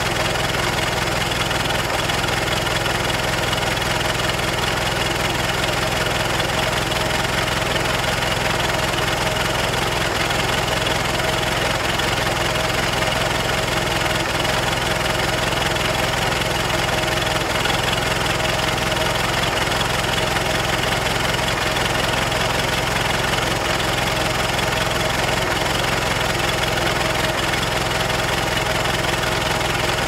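1930 Ford Model A four-cylinder engine idling steadily, with an even, unchanging beat.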